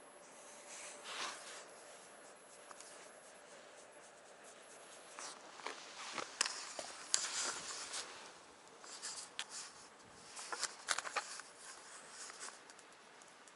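Quiet scratchy rubbing and rustling close to an action camera's microphone. It gets louder, with clicks and knocks, from about five seconds in and again near the end, as the camera is handled and moved while a cat is stroked.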